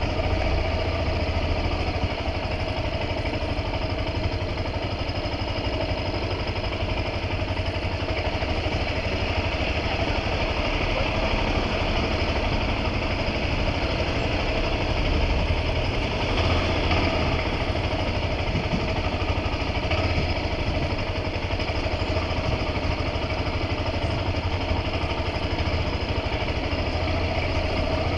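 A vehicle's engine running steadily with a constant low rumble and road noise.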